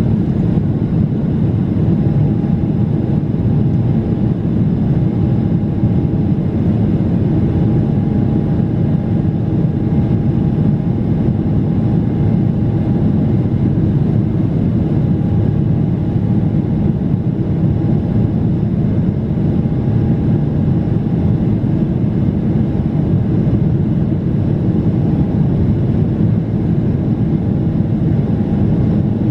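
Inside the cabin of a Boeing 777-300ER: a steady, loud rush of engine and air noise from its GE90 jet engines, with a faint intermittent whine above it.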